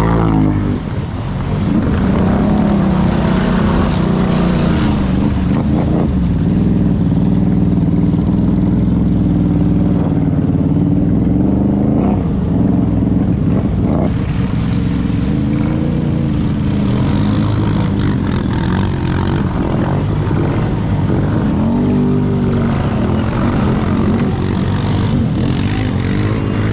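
Off-road vehicle engine running steadily under load, its pitch rising and falling repeatedly as the throttle is worked.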